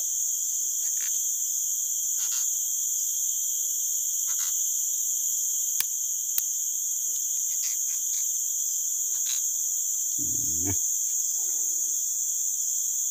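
Steady high-pitched drone of a forest insect chorus, with a few faint clicks and a brief low rustle about ten seconds in.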